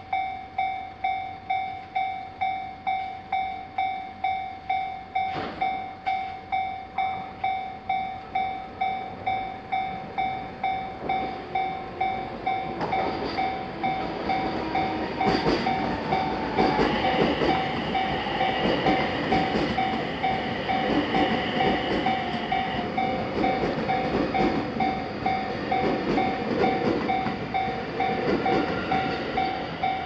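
Japanese level-crossing alarm ringing its repeating electronic bell tone, about one and a half strikes a second. From about halfway an electric commuter train comes in and passes, its rumble and wheel clatter on the rails growing louder over the bell, with a high steady tone for several seconds while it goes by.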